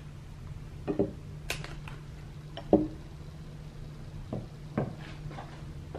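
Short knocks and clinks of a wax taper candle being pushed into and adjusted in a ceramic candle holder, about six taps with the loudest near the middle. A steady low hum runs underneath.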